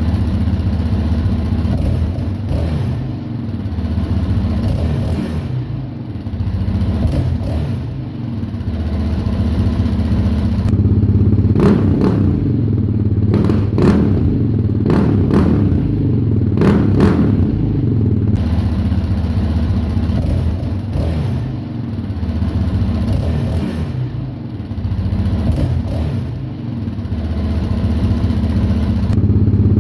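Yamaha Raptor 700R quad's single-cylinder four-stroke engine running through its exhaust, the revs rising and falling several times, with some sharp crackles in the middle stretch.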